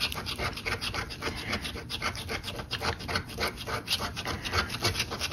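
A scratch-off lottery ticket being scraped with a small metal scratcher: quick, continuous back-and-forth rasping strokes, about five or six a second, wearing off the coating.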